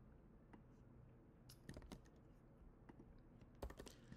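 Faint computer keyboard typing: a few scattered keystrokes about a second and a half in, then a quick run of keystrokes near the end.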